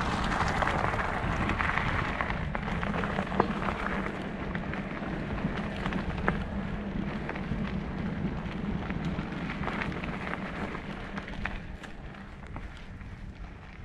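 Mountain bike tyres rolling fast over a gravel path and then dirt singletrack, a steady hiss with scattered rattles and clicks from bumps and loose stones, over wind rumble on the camera. The hiss is strongest over the gravel for the first few seconds, then eases as the trail turns to dirt.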